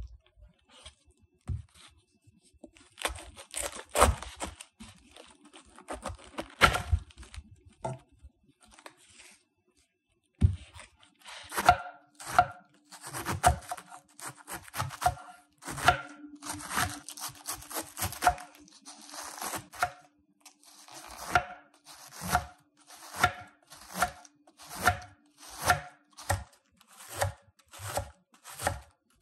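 Kitchen knife slicing through a raw green cabbage on a wooden cutting board, each crunching slice ending in a knock of the blade on the board. The cuts are irregular at first, then settle from about a third of the way in into a steady shredding rhythm of about three cuts every two seconds.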